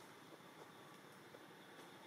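Near silence: a faint steady hiss, with one or two tiny ticks.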